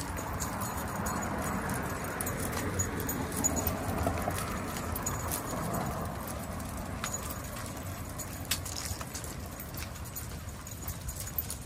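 A large pack of leashed dogs walking on pavement: collar tags and leash clips jingling, with scattered light clicks, over the steady noise of road traffic.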